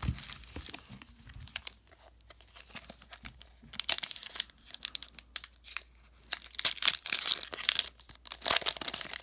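A Pokémon trading card booster pack's foil wrapper being torn open by hand: crinkling and short rips, scattered at first and busier in the second half.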